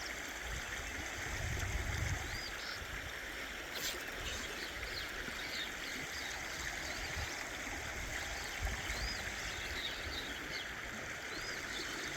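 River current flowing steadily over the bank, a continuous rushing wash, with short high chirps now and then.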